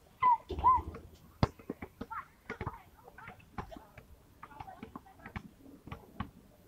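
Outdoor pickup basketball game: a loud shout from a player near the start, then a scatter of sharp thuds and taps from the ball bouncing on the asphalt court, with other players calling out.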